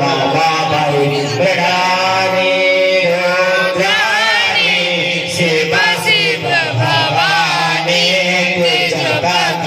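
Hindu devotional chanting sung to a melody, with long held notes that waver and glide between pitches.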